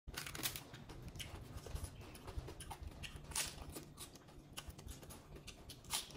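Close-miked eating sounds: irregular crisp crackles and clicks of a fresh lettuce leaf being handled, then a crunchy bite into the lettuce about six seconds in.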